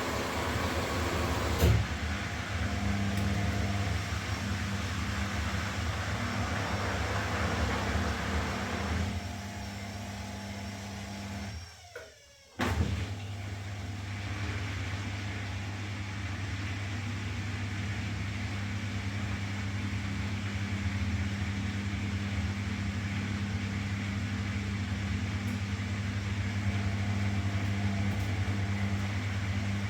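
Washing machine running with a steady motor hum and churning noise. A click comes about two seconds in. About twelve seconds in the sound drops out briefly, then starts again with a click and carries on steadily.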